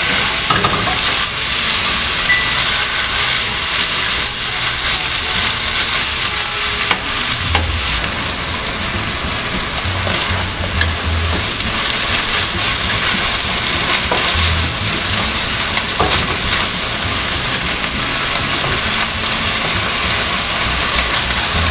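Sliced beef sizzling steadily as it stir-fries in a hot nonstick frying pan, with a slotted spatula scraping and turning the meat now and then.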